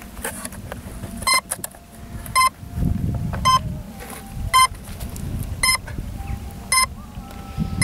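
Short electronic beeps from the RC jet's electronics, repeating steadily about once a second, just after its flight battery has been connected. A low rumble runs underneath from about three seconds in.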